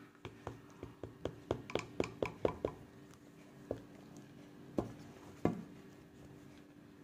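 Light taps and knocks of a plastic jar against a plastic measuring cup as gram flour is shaken out into it. A quick run of about four taps a second comes first, then three more spaced knocks.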